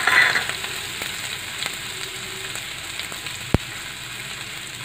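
Ginger and green chilli paste sizzling in hot mustard oil in a kadai, a louder burst of sizzling at the very start settling to a steady hiss. A single sharp click about three and a half seconds in.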